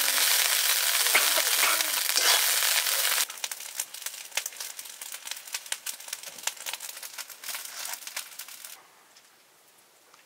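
Rice frying loudly in a wok, stirred and scraped with a metal spoon. After about three seconds this gives way to quieter scattered crackling and clicks from the wood fire and the sticks being shifted under the pan, which fade to near silence near the end.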